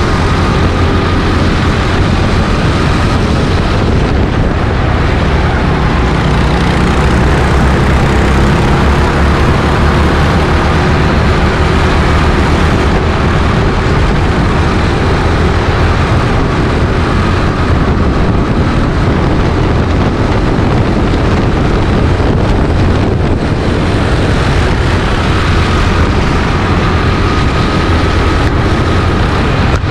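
Go-kart engine running steadily at speed, close to the onboard camera, with wind on the microphone.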